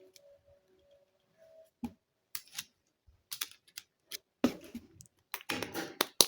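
Small plastic toy pieces being handled: scattered clicks and taps, growing into a quick cluster of clicks and short scrapes in the second half.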